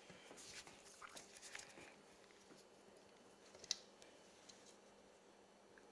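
Faint scrapes and light taps of a spoon dividing thick chocolate pudding into ceramic ramekins, mostly in the first two seconds, with one sharper tap about three and a half seconds in; otherwise near silence.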